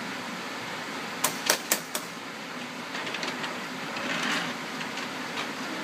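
Wooden toy trains and track pieces clicking and knocking together as they are handled, a quick run of sharp clicks between one and two seconds in, over a steady background hum.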